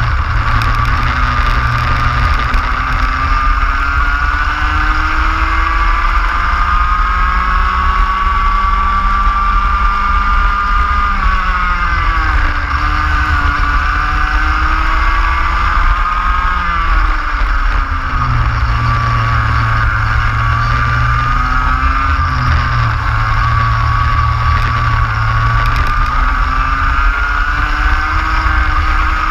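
Racing kart engine heard onboard, pulling hard with its pitch climbing slowly along the straights and dropping sharply four times as it slows for corners. A heavy wind rumble on the microphone runs underneath.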